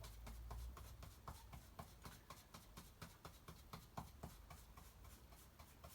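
Faint, irregular soft taps of a small paintbrush dabbing paint through a stencil onto a wooden toolbox, several taps a second.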